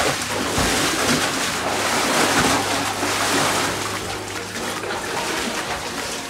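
Water splashing and churning in a small cold-water plunge font as a bather dunks fully under and climbs back out, a dense steady wash of sound that starts sharply.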